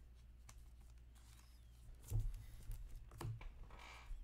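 Hands handling a trading card and a plastic card sleeve. There is a soft knock about two seconds in and another about a second later, then a short plastic rustle near the end, over a steady low hum.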